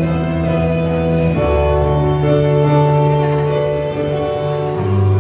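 Acoustic band playing live, a violin carrying sustained notes over held chords, with no singing. The chord changes about a second and a half in and again near the end.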